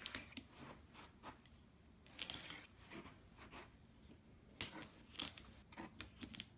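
Utility knife slitting clear packing tape along a cardboard box seam: faint, scratchy cutting and tearing strokes, in a short run about two seconds in and another about five seconds in.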